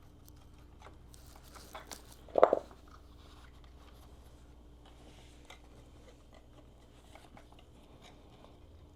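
Hand-work on motorcycle parts: scattered small clicks, rustles and light rattles, with one louder clunk about two and a half seconds in.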